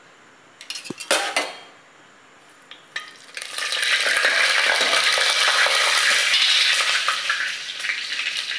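A spoon clicks against an aluminium pressure cooker about a second in. From about three seconds in, bay leaf, cumin and dried red chillies sizzle loudly in hot mustard oil as they are stirred. This is the phoran (tempering) stage, and the sizzle eases off near the end.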